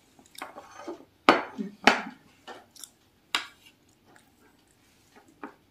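The crackly crust of a bread bun breaking as it is torn apart by hand, with several sharp clinks of the china saucer on the glass tabletop. The loudest clinks come about a second in and again past the middle.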